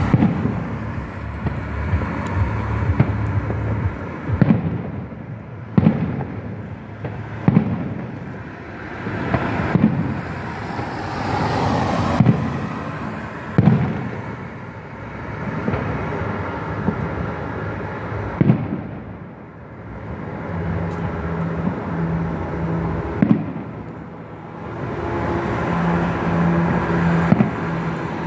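Fireworks bursting: a series of sharp bangs at irregular intervals, about one every second or two, over the swelling and fading noise of passing road traffic.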